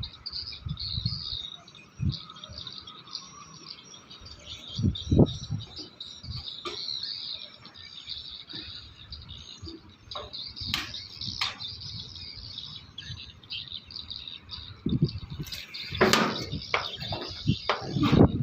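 Small birds chirping continuously, with scattered knocks and thumps from handling, one sharp knock about five seconds in and a cluster of louder thumps near the end.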